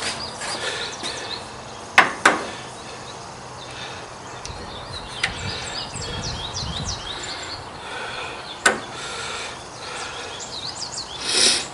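Small metal clicks and knocks from hand work on a lathe carriage: two sharp clicks about two seconds in, one more later, and a rustle near the end. Short high chirps sound over it.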